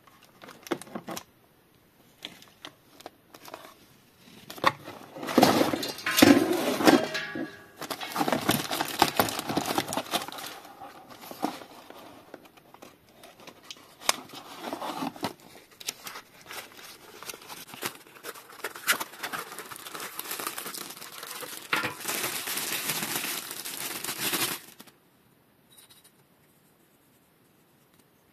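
Cardboard box and plastic packaging being handled and opened: irregular crinkling, rustling and tearing. It starts about four seconds in and stops abruptly a few seconds before the end.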